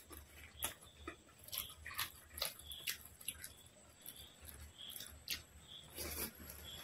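Close-miked eating by hand: soft, wet chewing and lip-smacking mouth sounds in short, irregular clicks as a mouthful of chicken fried rice goes in.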